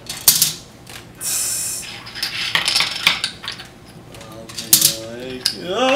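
Plastic Connect Four checkers clattering: a checker dropped into the upright grid rattles down into its slot, with more clicks of checkers being picked up from the pile on the table. There are several separate clicks and rattles, with one at the very start and another cluster about three-quarters of the way through.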